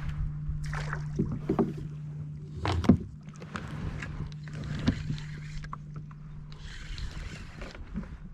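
Electric trolling motor humming steadily under splashing water and knocks against the kayak hull as a fish is reeled in, with one sharp knock about three seconds in.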